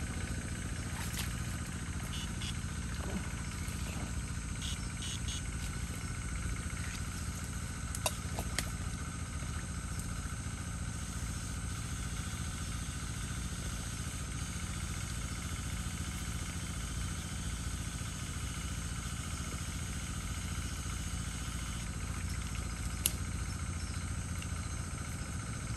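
A small engine runs steadily at an even speed throughout. A few sharp clicks stand out over it, two about eight seconds in and one near the end.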